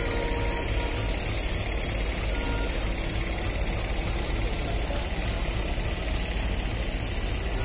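Railway platform ambience: a steady low rumble with an even hiss over it, no train passing.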